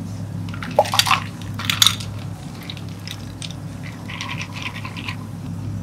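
Ice cubes tipped from a metal ice scoop into a plastic cup of milk: two loud bursts of clatter about a second and two seconds in, then lighter clinks as the cubes settle. A low steady hum runs underneath.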